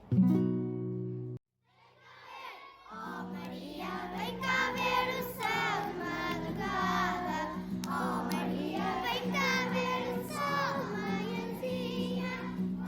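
Children singing a song over a steady held accompaniment tone. A short held instrumental note sounds first, then, after a brief pause, the singing comes in about two and a half seconds in.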